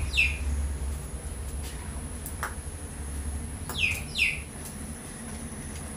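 A small bird chirping: short, high notes that sweep downward, one right at the start and two in quick succession about four seconds in. A couple of faint clicks come in between.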